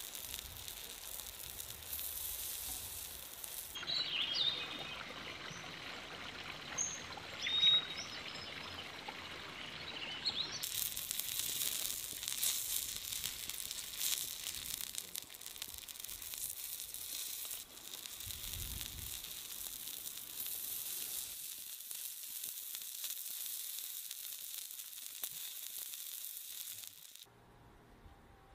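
Pork belly skewers sizzling and crackling on a grill, a steady hiss with a few louder pops.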